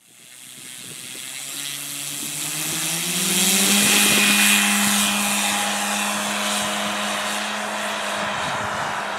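Electric brushless outrunner motor of a quarter-scale SIG Piper Cub RC plane, a Turnigy Rotomotor 1.60 turning a 20x6 propeller. Its whine rises in pitch as it throttles up for the takeoff run, then holds steady at high power as the plane climbs. A loud rushing hiss comes with it, loudest about four seconds in.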